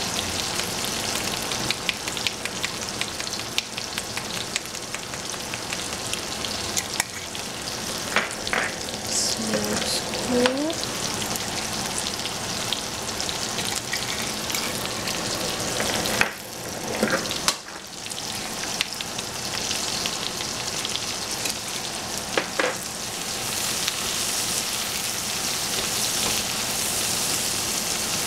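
Onions and sliced meat sizzling in oil in an enamelled cast-iron pot: a steady frying hiss full of small crackles. A wooden spoon stirs through the food, with a few sharper clicks against the pot.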